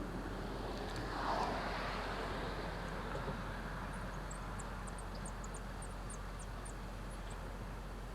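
Steady outdoor background noise with a vehicle passing, swelling to its loudest about a second in and fading away. Later comes a quick run of short, high chirps from a small bird.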